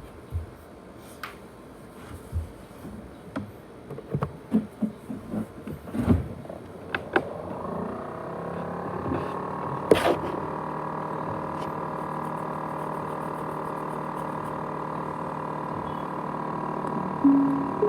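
Scattered clicks and knocks, then a motor spinning up in the laptop and USB hard drive setup: a whine rises in pitch over a couple of seconds and settles into a steady hum of several tones, with one sharp click partway through. This is the running noise the owner calls a jet-engine sound.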